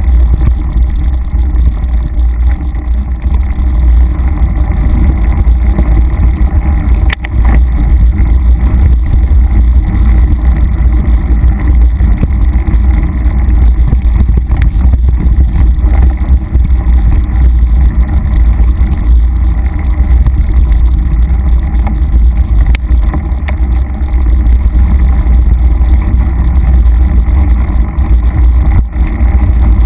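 Mountain bike riding a dirt singletrack, heard as a loud, steady low rumble of wind buffeting and trail vibration on the bike-mounted camera, with a few sharp knocks from the bike over bumps.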